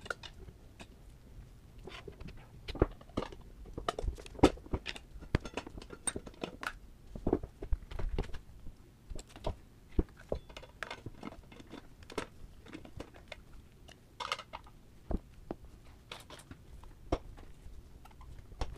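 Hand work on a motorcycle front wheel as the old tire is pried off its rim: irregular knocks, clicks and scrapes of tools and rubber against the wheel, with a short scrape about fourteen seconds in.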